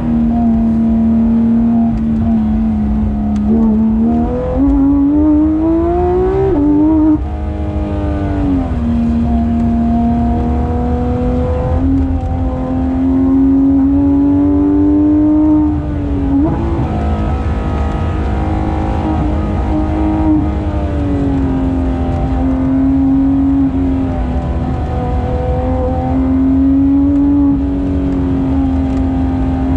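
Porsche 991.2 GT3 RS's naturally aspirated 4.0-litre flat-six running at high revs on track, pulling hard. The pitch climbs for a few seconds and drops sharply at a gear change about seven seconds in, then holds fairly steady with small dips, over a constant low rumble.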